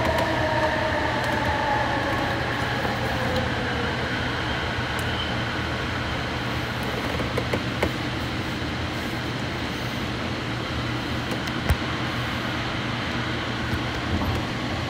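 AirTrain JFK people-mover car running along its guideway, heard from inside the car: a steady rolling rumble and hum, with a faint whine that falls in pitch over the first few seconds. A few light clicks and ticks from the car come through the noise, one sharper about three quarters of the way through.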